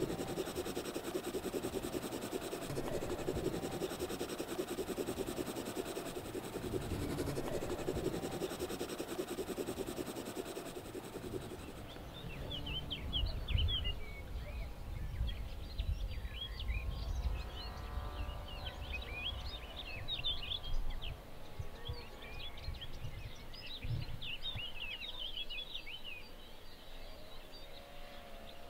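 Rural outdoor ambience: a steady noisy hum for the first dozen seconds, then small birds chirping and twittering over a low rumble.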